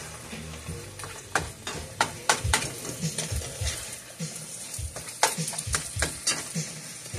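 Hamburger and onions sizzling in a frying pan as they are stirred, with the utensil scraping and knocking against the pan in a scatter of sharp clicks.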